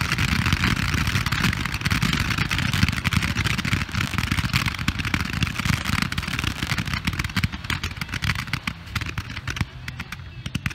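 Many 140-shot firework candle barrages firing together: a dense, near-continuous rattle of shots launching and bursting. It thins to scattered single shots and fades near the end as the candles burn out.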